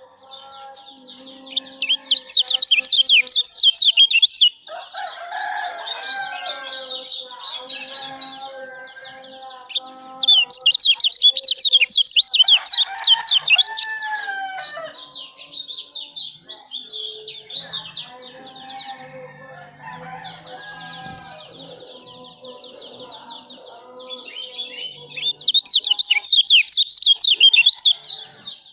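Kecial lombok, a small songbird, singing a fast, high twittering song that swells into loud bouts three times. Lower whistled bird calls run underneath.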